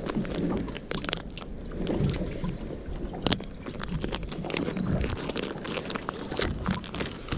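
Clear plastic bag of sand-eel bait crinkling and crackling as it is handled, in short sharp rustles, over a steady low rumble of wind on the microphone.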